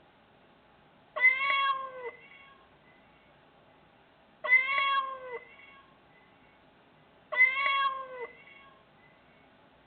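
A cat's meow sounds three times, about three seconds apart. Each call is just under a second long, rising and then falling in pitch. The three calls are alike, the same recorded meow sound effect played back.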